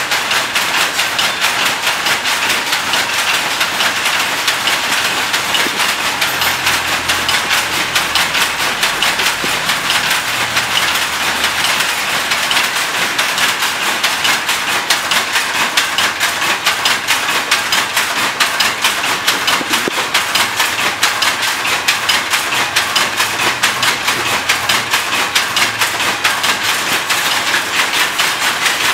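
Power looms clattering steadily, a fast, even rattle of repeated strikes from the shuttles and beaters that never lets up.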